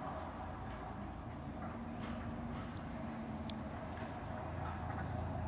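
Steady low background hum, with a few faint light clicks and rustles from a thin plastic cup being handled.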